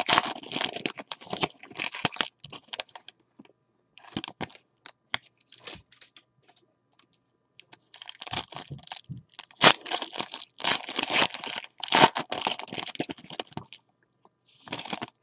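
Foil wrappers of 2018 Certified football card packs being torn open and crinkled by hand, in irregular crackling bursts with a quiet gap in the middle.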